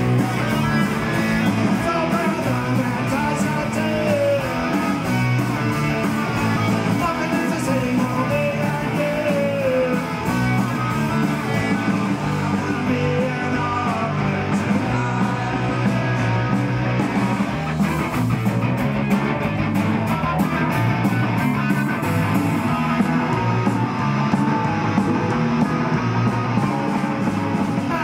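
Live punk rock band playing: distorted electric guitars and a drum kit driving steadily, with the lead singer singing over them.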